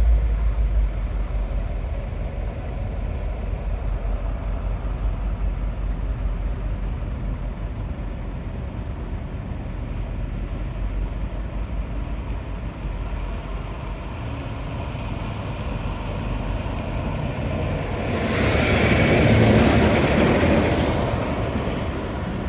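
Deep, steady rumble of a heavy vehicle running close by, swelling into a louder rushing pass about eighteen seconds in, then easing off.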